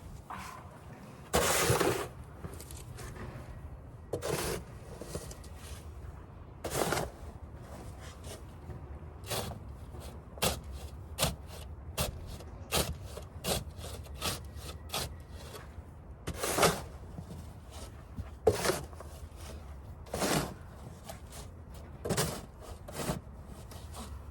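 Melnor snow shovel scraping and pushing snow in repeated strokes, one every one to three seconds, with quicker, lighter scrapes in the middle, over a steady low hum.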